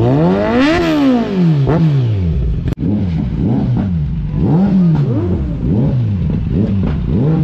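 A motorcycle engine revved hard several times, each blip of the throttle rising and falling quickly in pitch.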